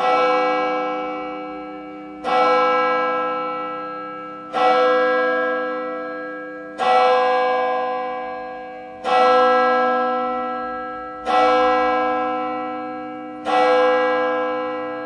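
A single church bell tolled seven times, about every two and a quarter seconds. Each stroke rings on at the same pitch and fades before the next.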